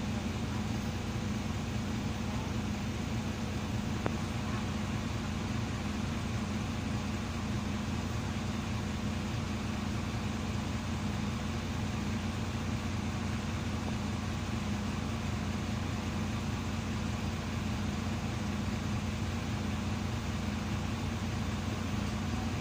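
Karosa B 961E articulated city bus's diesel engine idling steadily, heard from inside the passenger cabin.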